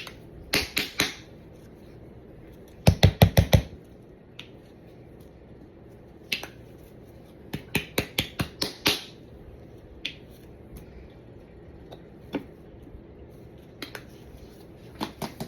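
Squeeze bottle of honey mustard sputtering as it is squirted onto a raw brisket: short bursts of rapid snapping clicks, three main runs with a few single ticks between.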